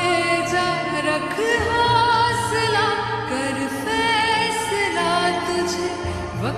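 Background music: a song with a sung vocal line over sustained instrumental accompaniment.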